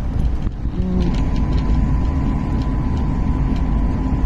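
Passenger train running at speed, heard from inside the carriage: a steady low rumble of wheels on the track, with a faint steady high whine joining about a second in.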